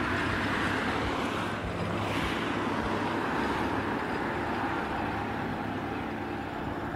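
Light single-engine piston aircraft's engine and propeller running steadily as the plane rolls along the runway, a little louder in the first couple of seconds.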